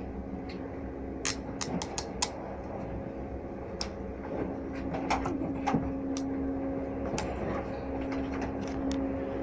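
Scattered sharp clicks and knocks, with a quick run of them about a second in, over a steady low hum.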